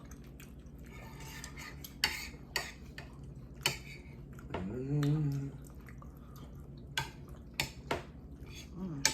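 Forks and spoons clinking and scraping against plates during a meal, several sharp separate clicks. A short voiced sound, like a hum, about five seconds in.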